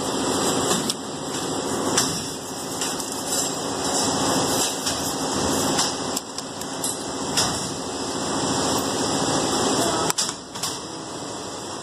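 A toothbrush scrubbing a flat metal embroidery-machine part in a tub of washing liquid. The brushing and sloshing run continuously, with many small clicks and scrapes of metal against the brush and the tub.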